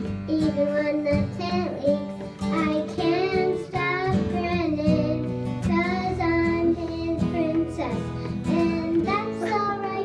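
A young girl singing a folk song to acoustic guitar and fiddle accompaniment, the guitar strummed in a steady rhythm under the sung melody.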